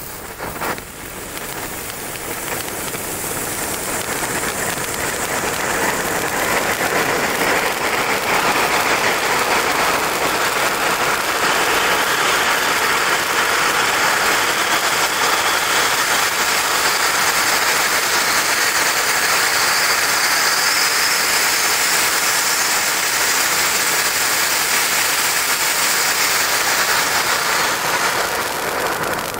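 Blackboxx Premio Vulkan Grün silver firework fountain burning with a steady hissing spray of sparks. It starts softer, with one short louder burst just under a second in, grows louder over the first several seconds, then holds level.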